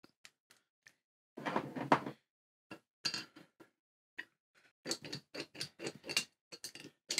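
A steel wrench clicking and clinking on the bolts of a lathe hex turret tailstock as a jammed tool-holder clamp is worked loose. There is a louder scrape about a second and a half in, then a run of quick metal ticks and clinks in the second half.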